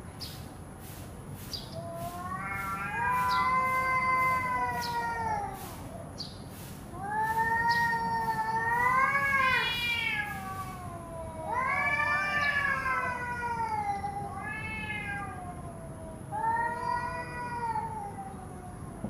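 Cats yowling at each other in a face-off: long, wavering howls that rise and fall in pitch, in about five drawn-out bouts with short pauses between. This is the threatening caterwaul of two cats squaring up before a fight.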